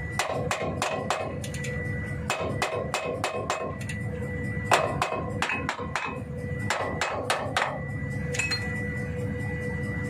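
Socket ratchet wrench clicking on a bolt of a truck air brake chamber, in short runs of rapid metallic clicks each time the handle is swung back.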